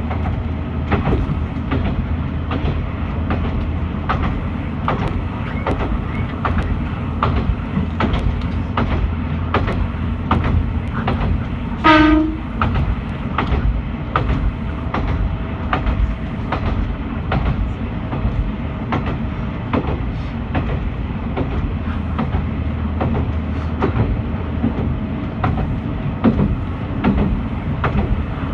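Kanto Railway KiHa 2000 diesel railcar running along the line, heard from the front of the cabin: a steady low engine drone with the wheels clicking over rail joints. About halfway through, the railcar's horn gives one short blast, the loudest sound.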